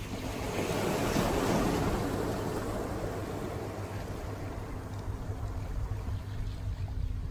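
Ocean surf: a wave breaks about half a second in, swelling over a second or so and then washing away, over a steady low rumble of wind on the microphone.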